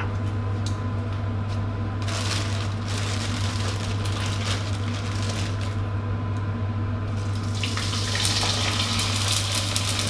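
Hot frying oil in a wok over a steady low hum, with a brief hiss about two seconds in. Near the end a dried salted fish goes into the oil and it starts sizzling hard, growing louder: the moisture still in the fish boiling off.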